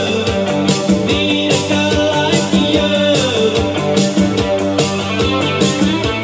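Music from an iPod Classic played through an Alphasonik USA2100 car amplifier into JBL N24 speakers, heard in the room at a loud, steady level: a song with guitar over a regular beat.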